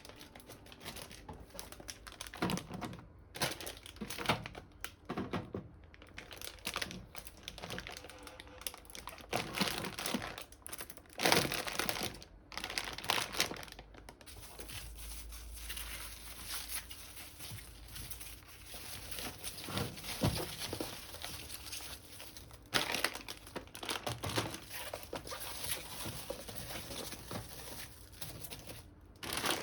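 Crinkling and rustling of packaging being handled, with scattered light knocks and clatter at uneven intervals.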